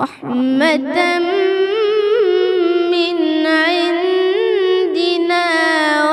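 Solo voice chanting Quran recitation in melodic tajweed style. It comes in suddenly and holds one long drawn-out note with small ornamental turns through to the end.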